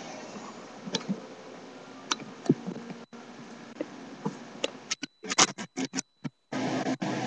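Steady background noise of an indoor room with scattered sharp clicks. About five seconds in, a cluster of loud clicks comes with brief cut-outs of the sound.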